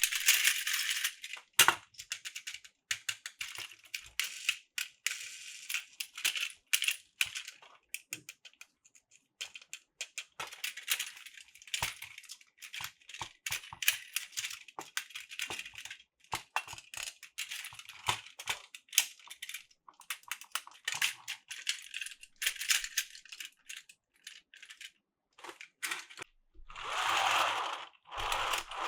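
Small hard plastic pieces being handled: irregular clicking and clattering with short crinkly rustles, and a longer rustle near the end.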